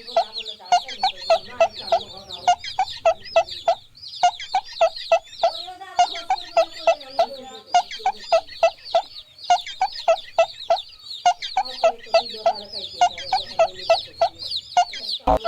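Chickens calling: a rapid, steady run of short clucks, several a second, with high falling chirps over them, pausing briefly about four seconds in.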